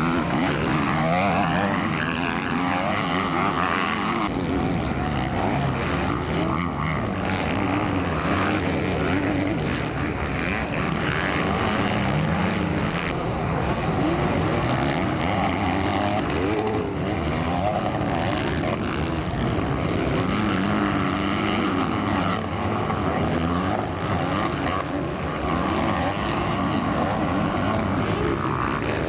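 Several motocross dirt bike engines revving hard, their pitches rising and falling over one another without a break, as the bikes race past and shift.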